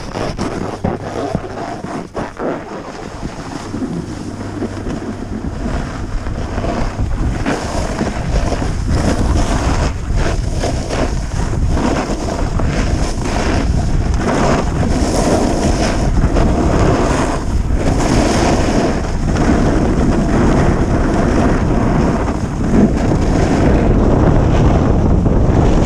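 Wind rushing over a GoPro's microphone, with skis hissing and scraping over packed snow, growing steadily louder as the skier picks up speed.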